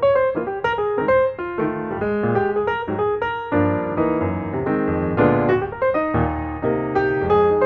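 Background piano music: a melody of quick notes over chords, with fuller, sustained chords in the middle.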